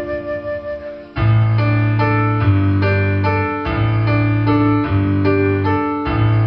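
Stage keyboard with a piano sound playing slow chords over a low sustained bass line, coming in strongly about a second in as the last flute notes die away.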